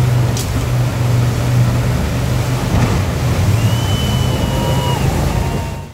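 Racing jet boat's engine running hard as it drives up through whitewater rapids, a steady low drone over the rush of the water, fading out at the very end.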